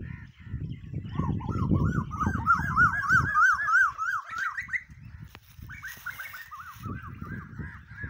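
Asian koel calling: a fast run of short rising-and-falling notes, about four a second, climbing steadily in pitch. It breaks off about two thirds of the way through, then starts again higher and settles back down. A low rumble runs underneath.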